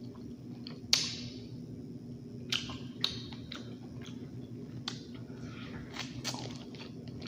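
Close-up eating sounds of a person chewing seafood-boil leftovers in butter garlic sauce: wet mouth smacks and several sharp clicks, the loudest about a second in.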